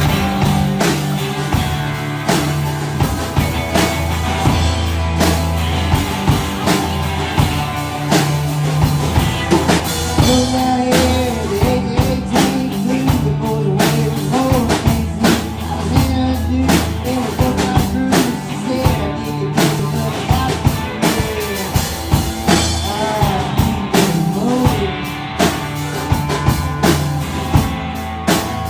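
Rock band playing live with drum kit, bass and guitar, a melodic line coming in about ten seconds in.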